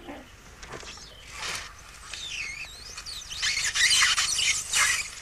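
Expanded polystyrene sheets squeaking and scraping as a needle and thread are pushed and pulled through them in a hand-worked lock-stitch demonstration. The squeaks waver up and down in pitch and are loudest in the second half.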